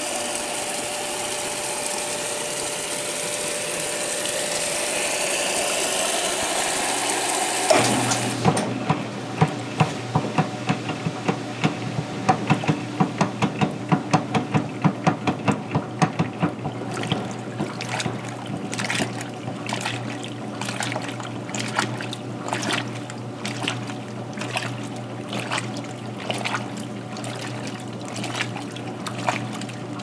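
Vintage Kenmore belt-drive top-load washer: water rushes into the tub for about eight seconds, then the fill shuts off. The agitator then sloshes the water and clothes in a regular rhythm of strokes over the steady hum of the machine.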